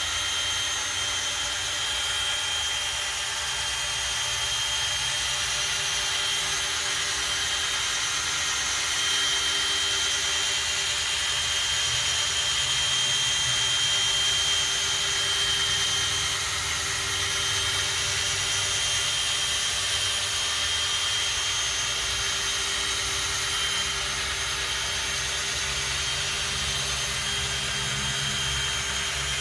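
Electric drill spinning a polishing pad against a plastic headlight lens, running steadily with a constant whine.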